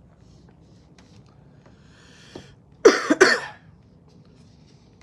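A man draws a breath, then coughs twice in quick succession, loud and harsh.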